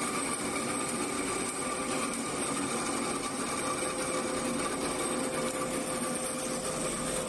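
DoAll vertical bandsaw running steadily: an even mechanical hum with a faint steady whine.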